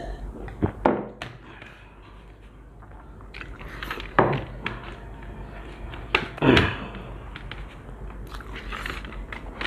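People eating kacchi biryani: chewing and mouth sounds, with a few sharp knocks or clinks about a second in and again twice around the middle.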